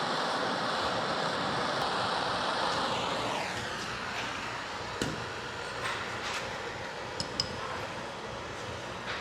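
A small handheld gas torch burning with a steady rushing hiss as it heats a rust-seized wiper arm; the hiss drops away about three seconds in, followed by a few light metal clinks and taps.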